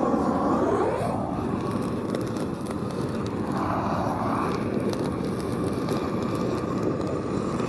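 Propane weed burner torch burning steadily: a continuous rushing of flame from the nozzle as it is swept over dry leaves and grass.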